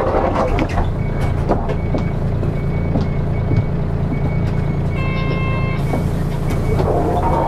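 Nissan Diesel Space Runner RM city bus's diesel engine running steadily on the road. A faint high beep repeats about once a second, and a short electronic chime sounds about five seconds in.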